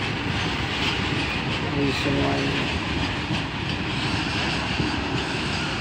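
Long Indian Railways goods train's wagons rolling steadily past a level crossing, wheels running over the rails.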